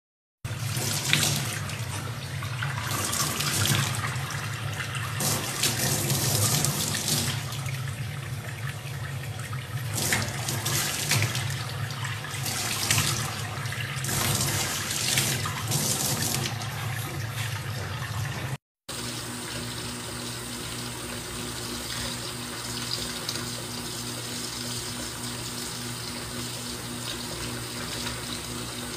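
Tap water running into a stainless steel sink, splashing unevenly with louder surges. After a brief dropout about two-thirds of the way in, a steadier stream of tap water pours into a water-filled dish.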